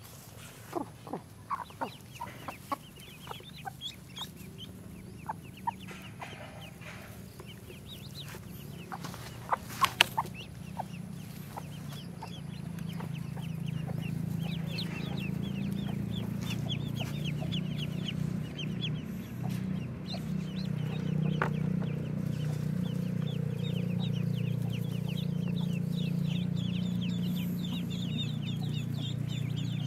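Black bone chicken hen clucking while a brood of ducklings peeps. The first third has scattered sharp knocks and rustles, the loudest about a third of the way in. From about halfway, rapid high peeping from the ducklings grows and fills the rest.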